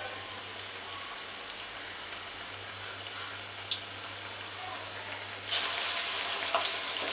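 Hot oil in a steel kadai hissing faintly with small bubbles, then a sudden loud crackling sizzle about five and a half seconds in as a flattened spinach and urad dal vada is dropped in and starts to deep-fry.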